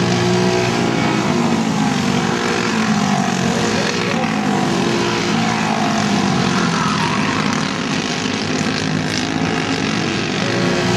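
Several Briggs & Stratton Animal single-cylinder four-stroke kart engines racing together. Their pitch falls and rises over and over as the karts brake into corners and accelerate out, with several engines overlapping at different pitches.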